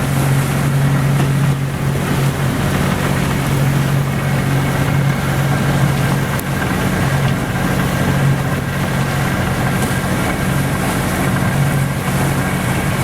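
Outboard motor of a MacGregor sailboat running steadily under way, a constant low drone, with wind noise on the microphone.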